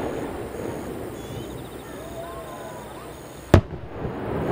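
A single sharp, loud bang from a firework shell bursting about three and a half seconds in, over a steady murmur of background noise with faint voices.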